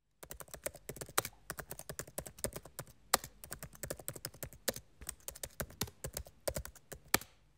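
Typing on a keyboard: a fast, uneven run of sharp key clicks that stops shortly before the end.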